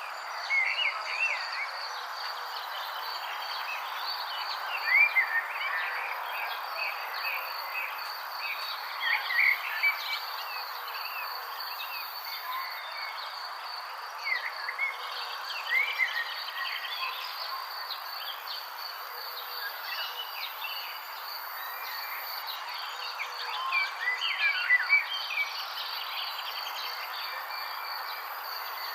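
Outdoor nature ambience: steady insect trilling over a background hiss, with birds chirping in short clusters several times.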